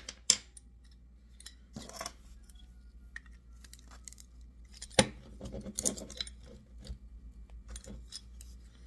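Light metal clicks and scrapes as a pair of old, rusty pliers is handled and worked by hand. There are two sharp taps at the start and one louder click about five seconds in.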